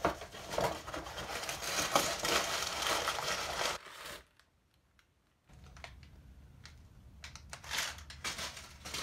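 Cardboard shipping box being cut and torn open: the scrape and tear of packing tape and cardboard flaps for about four seconds, a short silent gap, then softer rustling and handling of the cardboard with a couple of louder crinkles near the end.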